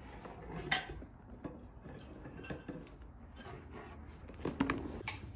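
Hands lifting a leather handbag (Polène Cyme Mini) out of its box and handling its leather straps: rubbing and rustling with scattered light knocks, a sharp tap about a second in and a cluster of clicks near the end.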